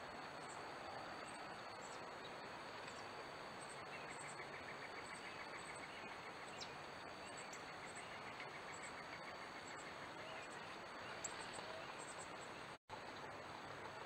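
Faint outdoor ambience with insects: a steady high thin drone over a hiss, and a rapid pulsed trill from about 4 to 10 seconds in. The sound drops out for an instant near the end, where the recording cuts.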